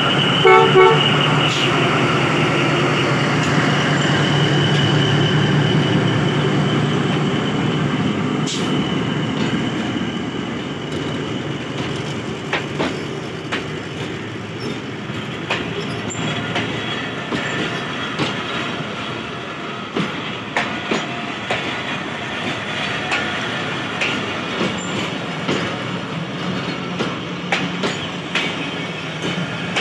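Pakistan Railways ZCU-20 diesel-electric locomotive pulling away close by with its engine running, a short pulsing horn toot in the first second. As the locomotive moves off, passenger coaches roll past with wheels clicking over the rail joints and some wheel squeal.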